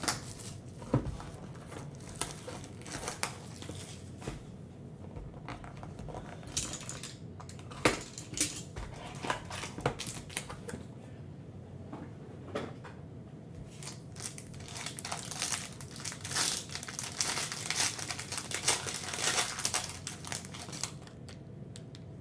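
Scattered taps, clicks and scrapes as a cardboard trading-card box is cut open and handled, then a foil card pack crinkling steadily as it is torn open in the second half.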